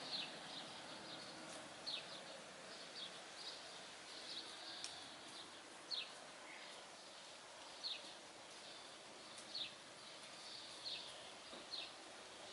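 A small bird calling over and over, a short high chirp that drops in pitch, repeated every second or two, over a faint steady outdoor hiss.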